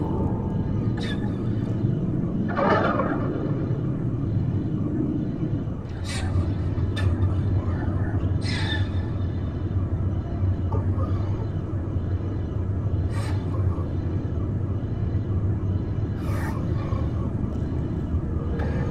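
Steady low rumbling drone, with scattered faint clicks and a few short swooping sounds, about three seconds in and again about eight seconds in.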